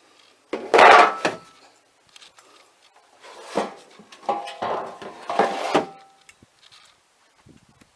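Wooden shelf and drawer-slide parts being handled, giving a loud knock about a second in, then a run of knocks and clatter with a brief metallic ring.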